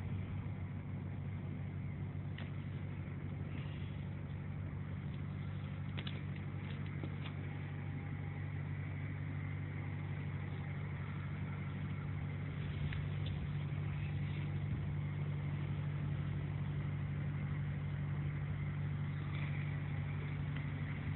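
A motor vehicle engine idling steadily, a low even hum, with a few faint clicks over it.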